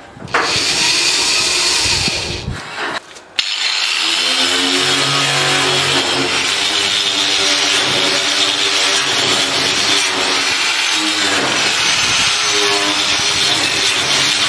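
A cordless drill bores into thin sheet steel for about two seconds. After a short pause an angle grinder starts and runs steadily against the sheet-metal stove top, its whine sagging and rising as it is pressed into the metal.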